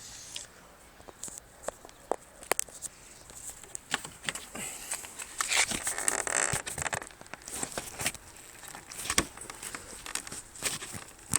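Ford Focus 3 outer window belt moulding being pried upward by hand: scattered plastic clicks and creaks, with a longer scraping creak about halfway through.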